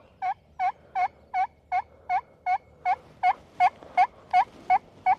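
Turkey yelping: a long, even series of about fourteen short notes, roughly three a second, growing louder toward the end.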